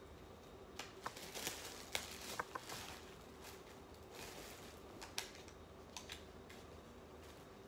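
Faint clicks and short rustles of a CD jewel case and its booklet being handled, in a cluster about one to three seconds in and a few more around five to six seconds.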